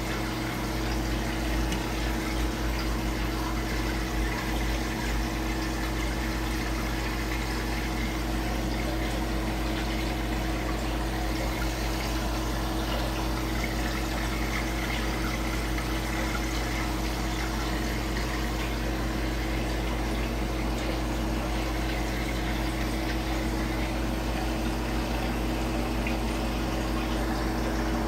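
Aquarium pump and filter running steadily: a constant flow of water with a steady motor hum underneath.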